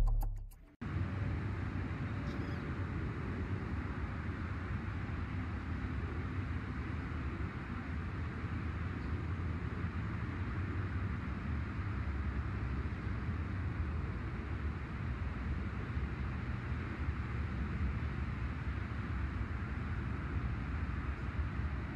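Steady outdoor background noise: a low, even rumble with a fainter hiss above it, with no distinct events.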